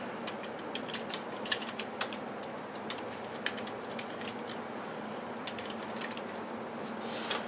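Typing on a computer keyboard: irregular key clicks, busiest in the first half, over a steady low background noise.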